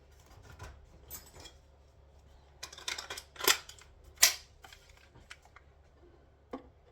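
Scattered clicks and clattering knocks of tools being handled, with the loudest knocks bunched about three to four seconds in.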